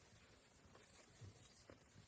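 Near silence: faint background hiss with a few soft, faint knocks.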